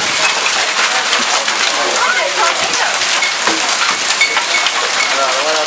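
Heavy hail mixed with rain pelting a covered patio and the yard around it: a loud, steady clatter of countless small impacts over a rushing hiss.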